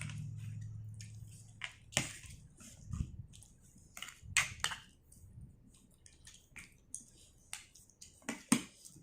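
Close-up eating sounds: chewing and crunching with irregular sharp clicks and wet smacks, the loudest about two, four and eight and a half seconds in.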